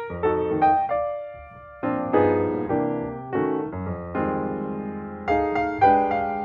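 Background music: piano notes and chords played at a gentle, unhurried pace.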